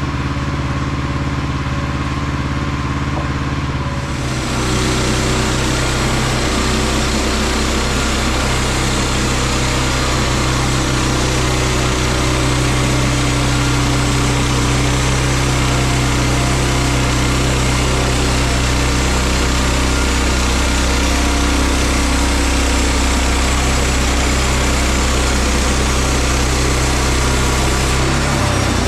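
Woodland Mills HM122 bandsaw sawmill's small gas engine running steadily. About four seconds in, its pitch drops as it takes load, and a steady hiss of the band blade cutting through the log comes in and holds.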